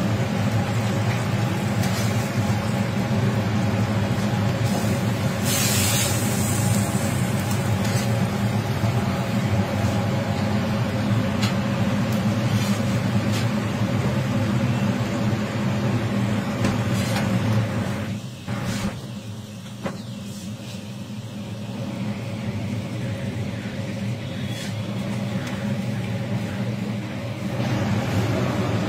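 A steady low mechanical drone, with occasional clinks and scrapes of a metal spatula on a steel flat-top griddle. The drone eases off about two-thirds of the way through.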